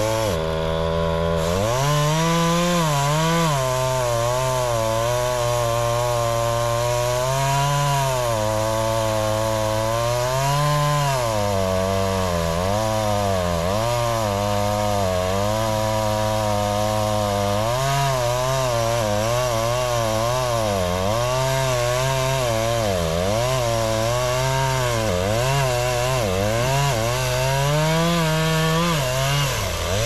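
Chainsaw cutting into the trunk of a big tree, its engine speed rising and falling over and over as it bogs down under load in the cut and picks up again.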